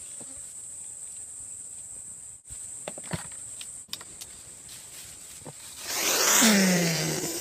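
Steady high-pitched insect drone from the surrounding bush, with a few light clicks. About six seconds in comes a loud rustling swell, the loudest part, with a short low falling tone in it.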